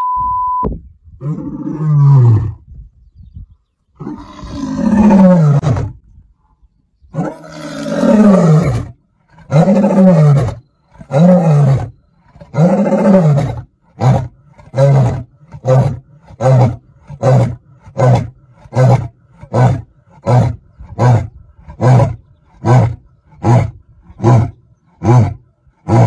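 Male lion roaring: a few long roars that fall in pitch, then a long run of short grunting roars about one and a half a second that grow shorter and quicker. A brief steady beep sounds at the very start.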